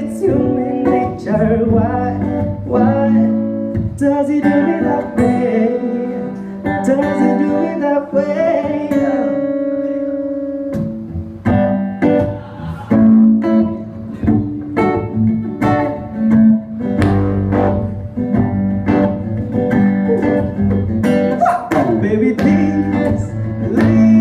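Acoustic guitar strumming chords, with a singer's wordless vocal runs and ad-libs over it.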